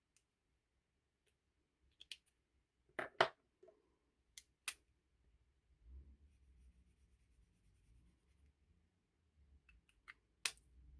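A scattered series of short, sharp clicks and snaps from art supplies being handled on a desk, likely pen or marker caps and packaging, with the loudest pair about three seconds in and another near the end. A faint low rumble sits underneath from about halfway.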